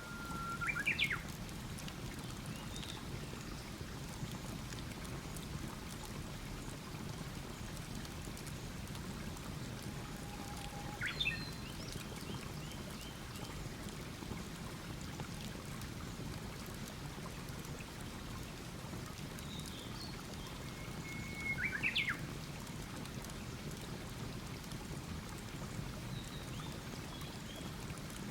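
Campfire burning with a steady hiss and faint crackle, while a bird repeats the same call three times, a held whistle breaking into quick rising and falling notes, with fainter short chirps between.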